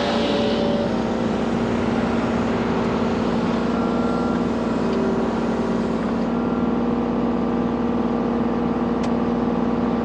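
Kubota U35-4 mini excavator running with its Express Steel hydraulic brush cutter spinning: a steady, even hum over the engine's low rumble. Near the end the pitch slides down and it gets a little quieter.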